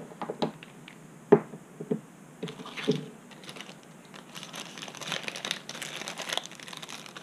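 A few light knocks and clicks of small parts and tools set down on a work mat, then a small plastic parts bag crinkling as it is handled, from about four seconds in.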